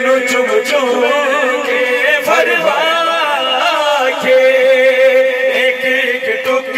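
A man's voice chanting a noha, a Shia mourning lament, in long held and sliding notes, amplified through a loudspeaker sound system.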